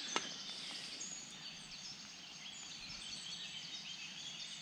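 Small birds chirping faintly: many short, high calls over a low, even outdoor background noise, with one small click just after the start.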